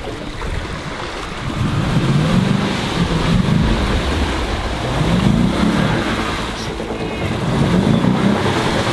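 Lexus LX570's V8 engine revving up and easing off in about three surges as the SUV pushes through deep muddy water, over the constant wash and slosh of water around the body.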